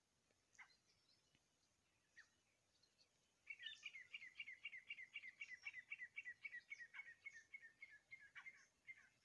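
Grey francolin calling: after a few faint single notes, a fast run of sharp, repeated notes, about five a second, starts about three and a half seconds in and goes on for some five seconds, slipping slightly lower in pitch toward the end.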